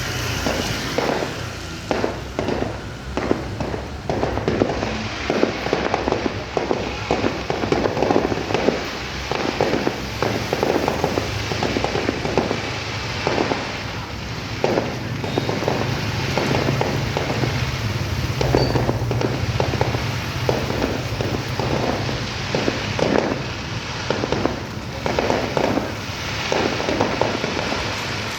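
Fireworks display going off: a dense, unbroken run of bangs and crackling bursts, several a second, for the whole stretch.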